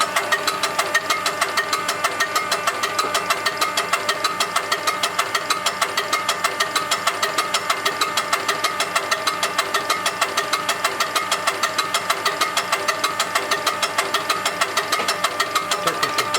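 UTN-4 diesel fuel-injection pump running after repair and adjustment, an even mechanical beat of about five pulses a second over a steady whine. A short falling tone comes in near the end.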